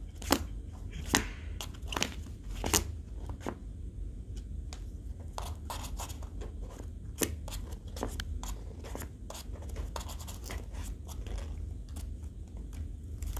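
Tabby cat pawing and rummaging among cardboard and paper pieces in a cardboard box: a run of sharp scratches, scrapes and rustles, thickest in the first few seconds, then sparser.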